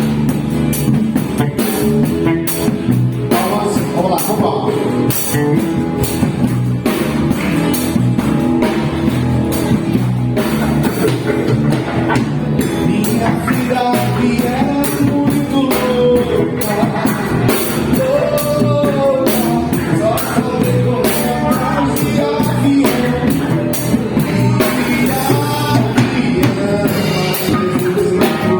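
A band playing a baião in a rock style: drum kit, bass, guitars and keyboards keeping a steady beat, with a melody line rising and falling over it.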